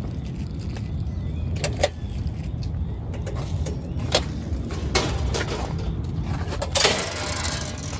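Black steel dog-park entry gates being pushed open and latched: several sharp metal clanks and clicks, the loudest near the end, over a steady low rumble.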